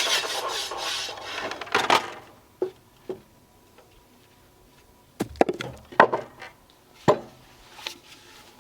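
12-inch sliding compound miter saw finishing a cut through a pressure-treated wooden brace and dying away over the first two seconds. Then a series of sharp knocks of wood on wood, most of them bunched together in the second half.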